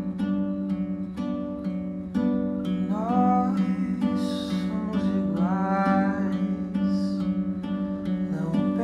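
Acoustic guitar playing chords in an even, repeating pattern as a song's intro, with a voice starting to sing over it about three seconds in.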